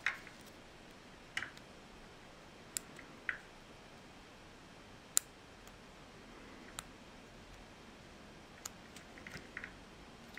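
Small, sharp clicks and ticks from the metal pins and plastic housing of a Molex fan power plug being handled while reassembling it, with the pins' side tangs spread back out so they lock. The clicks come singly and at uneven intervals, about ten in all, the sharpest about halfway through, with a quick cluster near the end.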